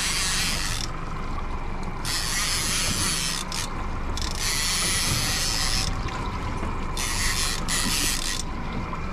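Fishing reel ratcheting in bursts of a second or two with short gaps between, as a hooked bonito is fought on rod and reel.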